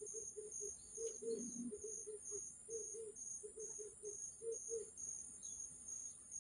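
Insects, cricket-like, chirping: a steady high trill with a high chirp repeating about twice a second, and irregular low pulsing underneath.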